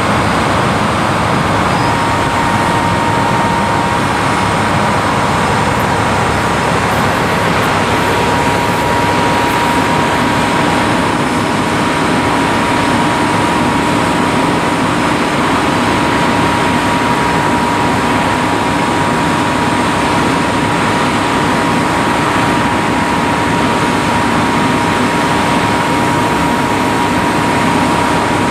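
Caterpillar 308D mini excavator's diesel engine running steadily under load as its hydraulic drive head turns a steel ground screw into the ground. A steady high whine joins about two seconds in.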